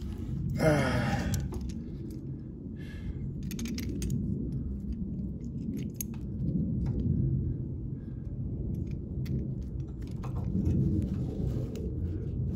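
Scattered small metal clicks and rattles of carburetor linkage rods and pliers as the choke linkage is fitted to a Honda GCV160 engine's carburetor. Under them runs a steady low rumble and rustle of a glove and sleeve brushing close to the microphone.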